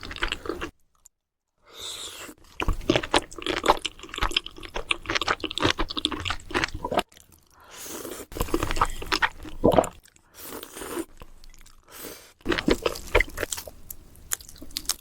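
Close-miked eating: chewing with crisp crunching and crackling bites, in several stretches broken by brief silences.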